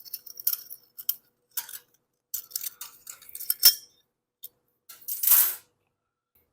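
Light clicks and metallic clinks of the steel recoil spring and plastic housing of a pull-starter being handled as the spring is taken out, with one sharp click a little past halfway and a short scraping rustle about five seconds in.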